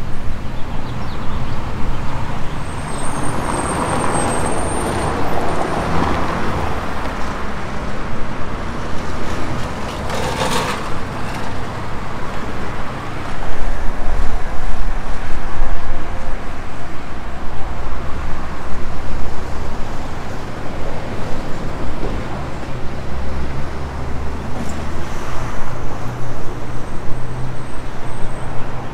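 Street traffic: cars, buses and trucks running past with a steady engine hum. A thin high squeal comes about three seconds in, a short hiss about ten seconds in, and a louder pass from about thirteen to sixteen seconds.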